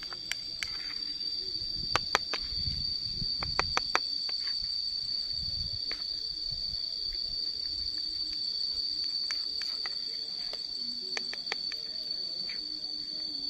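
Metal spoon stirring thin batter in a small plastic bowl, with light clicks of the spoon against the bowl, several close together about two to four seconds in. A steady high-pitched insect drone carries on throughout.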